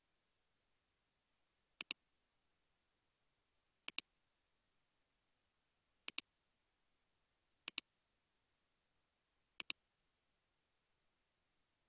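Computer mouse button clicks, five in all about two seconds apart, each a quick double tick of the button pressing and releasing.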